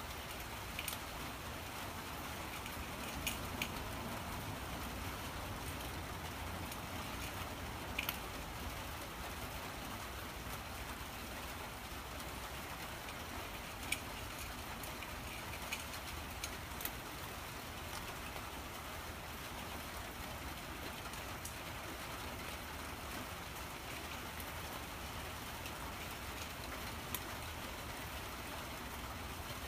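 Calico cat eating from a small bowl: scattered short clicks from its chewing and the bowl, over a steady background hiss.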